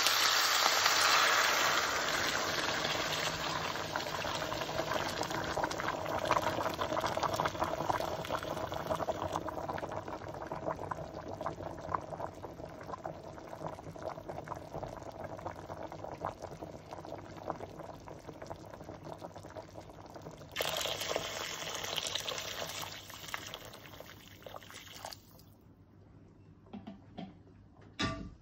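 A pot of water with chicken pieces bubbling and crackling as it heats toward a boil. It is loudest at first and dies down, comes back suddenly louder about two-thirds of the way through, then fades to a few faint crackles near the end.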